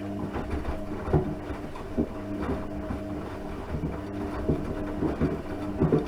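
Washing machine running: a steady motor hum with irregular thumps and knocks from the turning drum every second or so.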